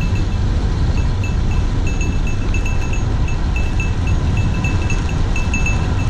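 Wind buffeting the microphone and tyre noise from a road bike descending at speed, as a steady low rush. Short high pings recur irregularly over it, at times several a second.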